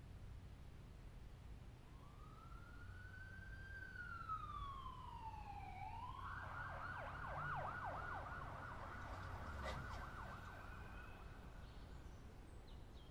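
Emergency vehicle siren: one slow wail that rises and falls, then a rapid yelp for about four seconds before it fades out.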